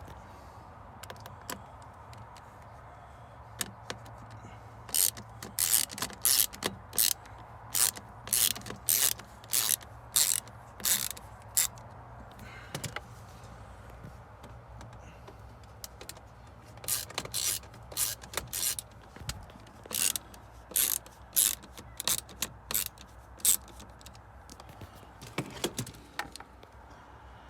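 A ratchet tool clicking in two runs of quick strokes, about two clicks a second, as the two screws holding the headlight switch are backed out.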